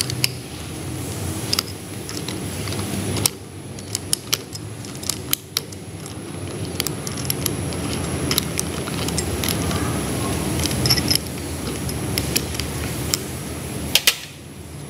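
Scattered metallic clicks and clinks of a special key and spanner working on the governor end of a PE inline diesel injection pump as the flyweight nut is undone, heard over a steady background noise. A close pair of sharp clinks comes near the end.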